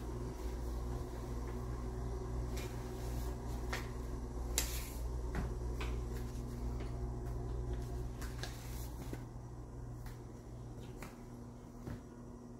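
Footsteps on a laminate wood floor and handling of a phone, heard as scattered light taps and clicks over a steady low hum. The strongest click comes about four and a half seconds in, and the hum fades over the last few seconds.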